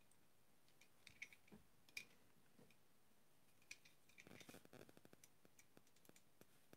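Faint clicking and ticking of small die-cast and plastic model-car parts being handled as a tiny engine piece is worked into the engine bay, a few scattered clicks at first and a denser run of them from about four seconds in.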